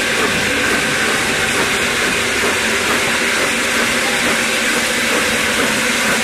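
BR Standard Class 8 Pacific locomotive 71000 Duke of Gloucester pulling away with its train, a loud, steady hiss of steam from its open cylinder drain cocks.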